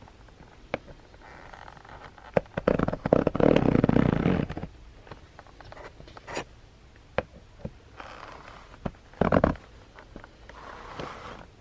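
Fingers prying open a perforated cardboard advent-calendar door: scattered light taps and clicks on the card, with a louder stretch of scraping and rustling about three to four and a half seconds in and another short rustle about nine seconds in.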